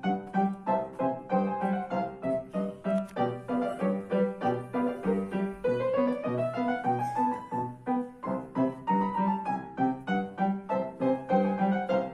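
Lively piano music with a quick, even beat, with one long rising slide about halfway through.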